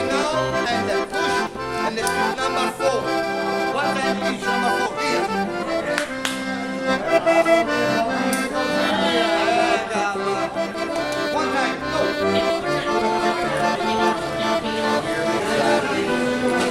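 Accordion music: a melody over held chords, playing steadily throughout.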